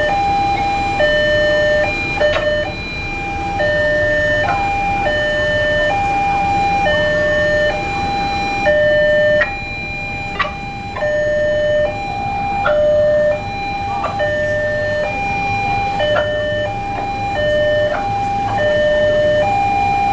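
Electronic level-crossing warning alarm sounding a steady two-note high-low pattern, switching notes about once a second. It signals that the crossing gates are down and a train is approaching.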